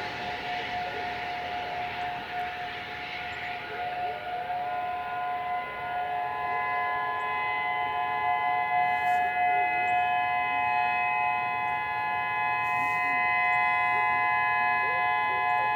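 Outdoor warning sirens sounding steady tones during a test. One tone holds a steady pitch throughout. About four seconds in, further siren tones rise in pitch and settle into a steady chord of several notes. A hiss of passing traffic fades out in the first few seconds.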